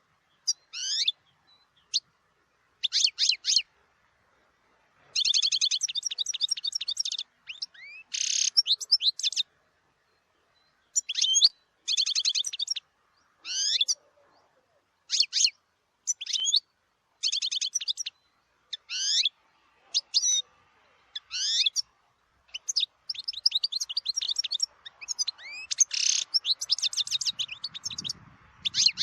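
European goldfinch singing: high, fast twittering phrases of quick liquid notes and buzzy trills, each about a second long, with short pauses between them.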